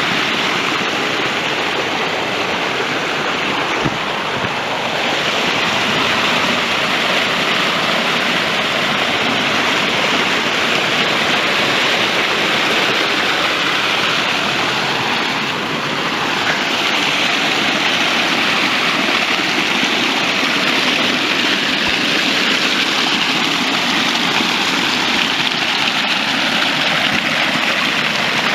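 Running stream: water rushing and splashing steadily over rocks.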